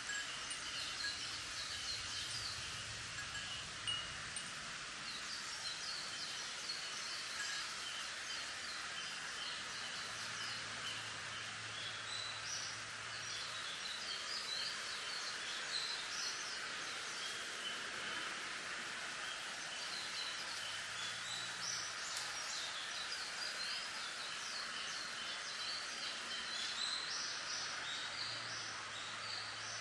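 Bamboo leaves rustling steadily in the wind, with bells chiming and birds chirping in short high notes.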